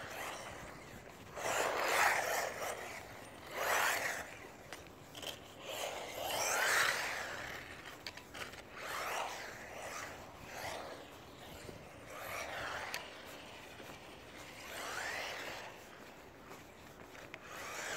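HSP XSTR Pro electric RC buggy driven on tarmac in short throttle bursts every second or two. Each burst is a brief rush of motor and tyre noise, some rising or falling in pitch.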